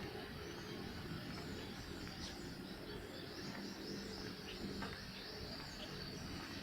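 Faint outdoor background: a steady hiss with a low hum under it and scattered short high chirps, typical of birds.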